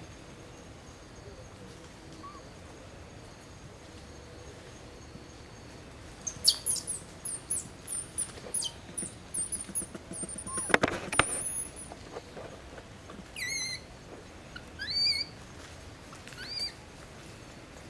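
Small birds chirping. A run of quick, very high chirps starts about six seconds in and lasts some six seconds, with a couple of sharp clicks among them. A few short whistled calls follow near the end, one falling and two rising in pitch.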